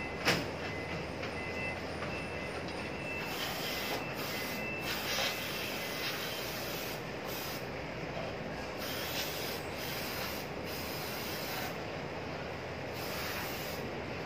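Steady background rumble and hiss, with one sharp knock a moment in as a foot lands on the aluminium stepladder and a smaller bump about five seconds in. Faint short beeps repeat during the first few seconds.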